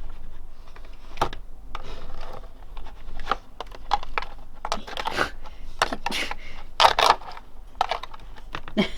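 Irregular clicks and rustling from hands handling plastic molds and squishy gel body-part pieces.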